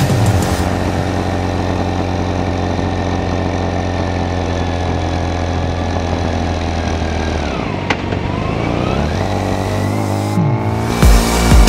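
BMW K1600 GTL motorcycle's inline-six engine running steadily under way; about eight seconds in the revs drop, then climb again.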